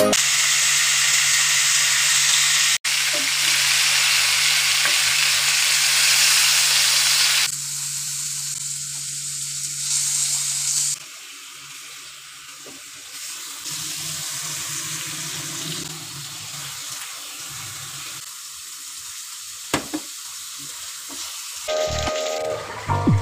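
Onions and whole spices frying in hot oil in a pan: a loud, steady sizzle that drops in two steps, about seven and about eleven seconds in, to a quieter sizzle as a spatula stirs the pan. A low steady hum runs under the first part, and music comes in near the end.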